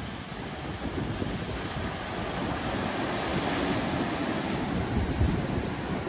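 Surf washing and breaking over rocky shore, a steady rushing that swells a little louder in the second half, with wind rumbling on the microphone.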